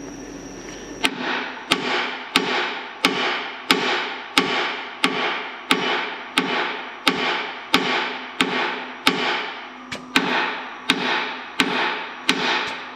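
Hammer blows on the steel center-hinge frame of a John Deere 624K loader, tapping around the bore as a bottle jack presses a new lower center-pin bearing in. The blows start about a second in and come steadily at about one and a half a second, each a sharp crack with a short metallic ring.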